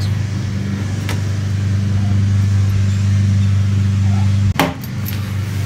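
A machine running with a steady low hum. A faint click comes about a second in, and a sharp knock about four and a half seconds in, after which the hum is a little quieter.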